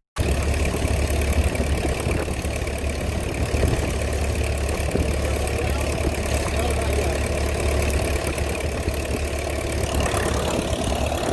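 A big air compressor's engine running steadily under a constant hiss of compressed air from the blow nozzle, as the combine is blown out.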